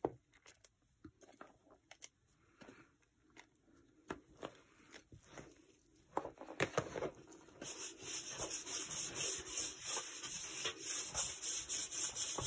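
Hands kneading and rubbing a crumbly flour-and-walnut halva mixture in a pan, a dry, gritty rustling. It starts as scattered light scrapes and taps, with a spoon adding chopped walnuts, and about two-thirds of the way through becomes a dense, steady rubbing.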